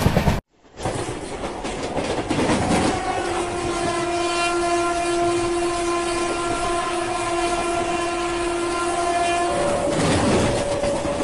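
Train running with a steady rumble and wheel clatter. About three seconds in, its horn starts and holds one steady tone for some six seconds, then shifts to a different pitch near the end.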